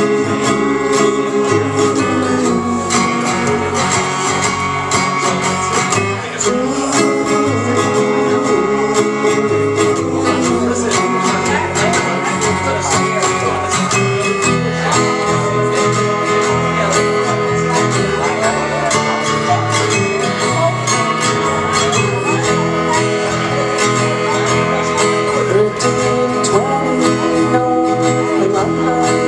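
Live acoustic guitar strumming and electric bass guitar playing a country song, with voices singing over them.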